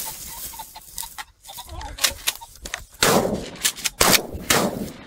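Sound effects for an animated logo intro: scattered small clicks, then three loud, sharp bangs in the second half, each with a short ringing tail.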